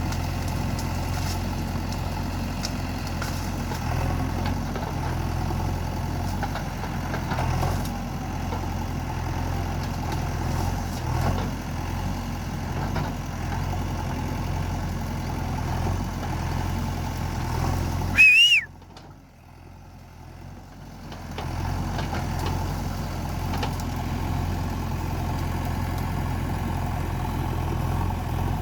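JCB 3DX backhoe loader's diesel engine running steadily. About 18 seconds in, a short whistle-like squeal rises and falls, then the sound drops away for a couple of seconds before the engine noise returns.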